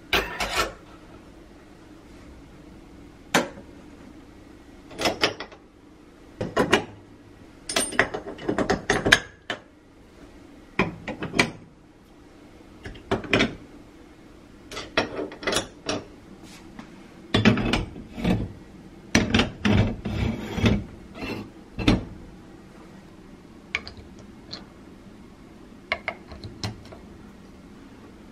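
Metal kitchen parts, chiefly gas-hob burner caps and heads, being set down and fitted back in place. It makes irregular clicks, clinks and knocks, some single and some in short clattering runs.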